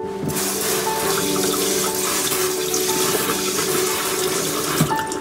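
Kitchen tap running into a stainless-steel sink, the water splashing as a bunch of green onions is rinsed under it; it shuts off near the end. Soft background music plays underneath.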